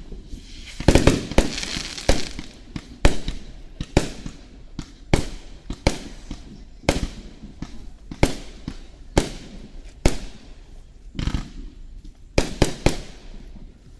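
Aerial fireworks shells bursting in quick succession, sharp bangs about one to two a second, each with a short echo, bunched into rapid clusters twice. The bangs stop near the end.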